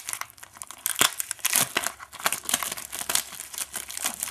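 Packaging on a hockey card pack being torn open and crinkled by hand: a dense run of irregular crackles and rips, loudest about a second in.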